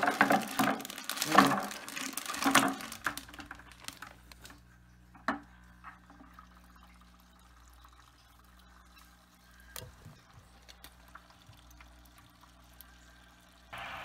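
Snails and water poured from a bag into a plastic bucket of water, splashing and clattering for about three seconds. Then a faint steady low hum with a few small knocks.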